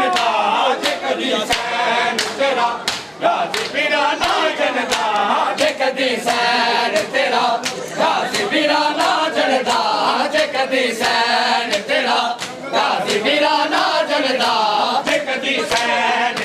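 A crowd of men chanting a noha refrain in unison, with sharp, rhythmic chest-beating slaps (matam) about two a second.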